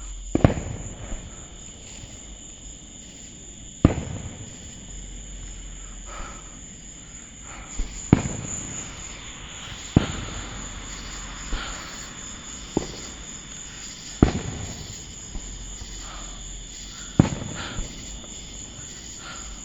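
Fireworks going off: about ten sharp bangs spaced one to four seconds apart, each trailing off in an echo. A steady high insect chirring, typical of crickets, runs underneath.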